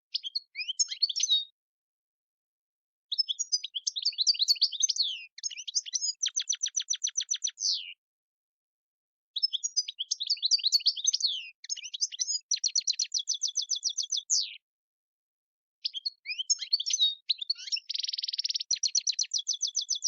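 European goldfinch singing: a short twitter about a second in, then three long song phrases of quick, varied chirps, each ending in a fast, even trill, with short silent pauses between phrases.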